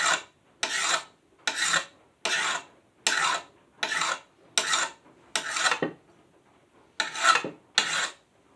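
Hand file rasping along the sharpened edge of a steel lawn mower blade in steady strokes, a little over one a second, with a short pause about six seconds in: the file is knocking the burr off the edge.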